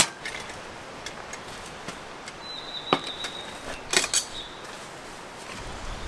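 A few scattered sharp knocks and clacks, a pair close together about four seconds in, with a short high steady tone just before them. A low rumble from wind picks up near the end.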